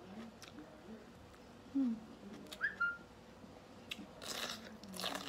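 Close-up eating sounds: chewing a mouthful of rice and raw vegetables, then crunching bites into a raw bitter gourd near the end. A short, high whistle-like chirp sounds about halfway through.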